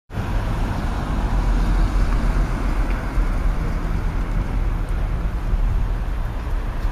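Outdoor street noise: a steady, deep rumble with a haze of traffic-like noise over it.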